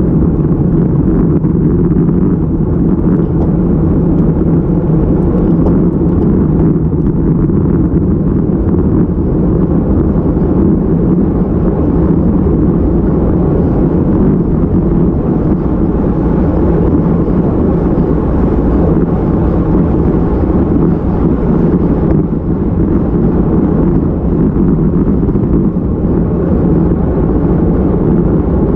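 Steady low rush of wind buffeting the microphone of a handlebar-mounted camera on a road bike riding at speed.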